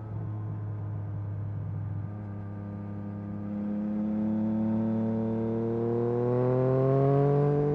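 Yamaha MT-09 SP's inline three-cylinder engine through an Akrapovic carbon exhaust, holding a steady note, then rising gradually in revs over the last few seconds as the bike accelerates.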